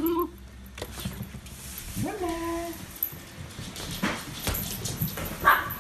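Toy poodle whining and yipping: a held, even-pitched whine about two seconds in, then two short, sharp sounds, the loudest near the end.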